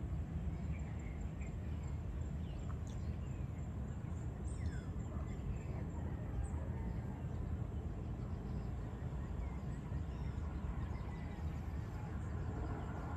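Outdoor ambience: scattered bird chirps and short sweeping calls, most of them in the first half, over a steady low rumble.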